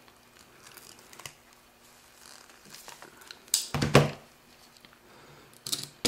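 Hands handling a wire crimping tool and a crimped ring terminal on heavy wire: faint clicks and rustles, with a louder rustling clatter about three and a half seconds in and a shorter one near the end.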